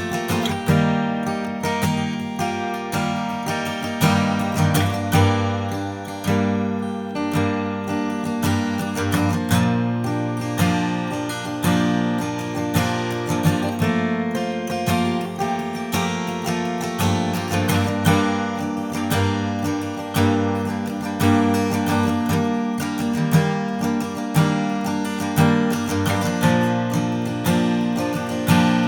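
Martin Custom Shop all-flamed-mahogany Style 18 acoustic guitar being played: chords strummed and notes picked, ringing on one after another.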